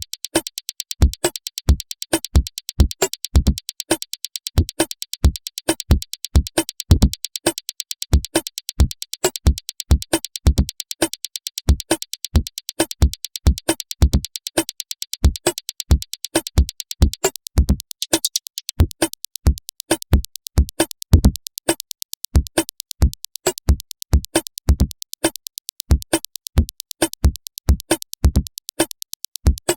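Electronic drum-machine loop played back from Bitwig's sampler, every sound cut from one piece of audio: low drum hits under fast, even high ticking, with synth tones. About 17 seconds in the high part of the pattern changes.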